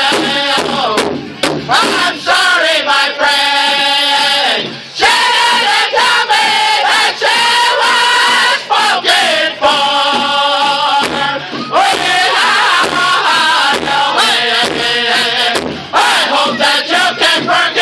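Pow wow drum group: male singers singing in unison over a steady, evenly struck drum beat, their phrases sliding down in pitch, with brief dips between phrases.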